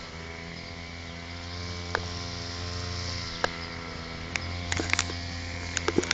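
A steady mechanical hum with scattered sharp clicks and knocks, more of them in the last couple of seconds.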